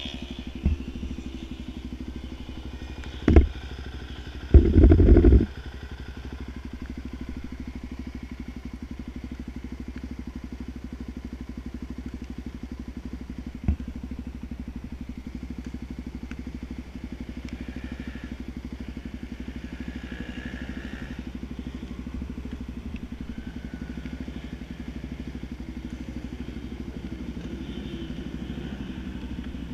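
Motorcycle engine running steadily on a supermoto bike. A few brief knocks punctuate it, the loudest a roughly one-second burst about five seconds in.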